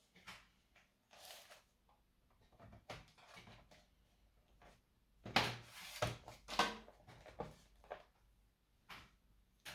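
Hands working on a laptop's plastic case and parts: irregular clicks, knocks and scrapes, busiest about halfway through.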